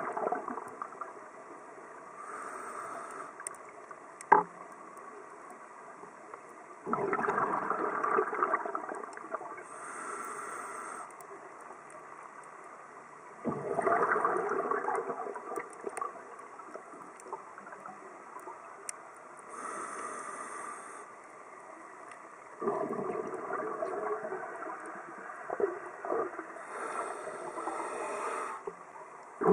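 Scuba diver breathing through a regulator underwater: short hissing inhalations alternate with longer, louder rushes of bubbling exhaled air, about one breath every seven seconds. A single sharp click stands out about four seconds in.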